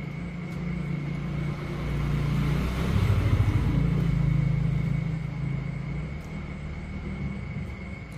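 Low engine rumble of a passing road vehicle, swelling to its loudest about three seconds in and then fading away.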